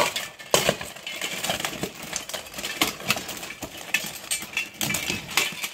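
Steel plate armor clanking and scraping as two armored fighters grapple, with many irregular sharp metallic knocks; the loudest come at the very start and about half a second in.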